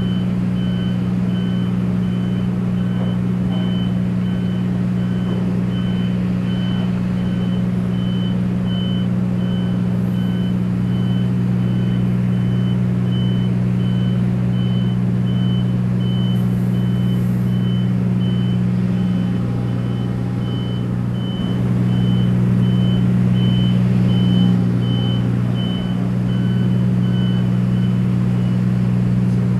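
Heavy port machinery running with a steady deep engine drone, while a high warning beep repeats at an even pace and stops near the end, the kind of alarm that sounds while a crane or vehicle is moving.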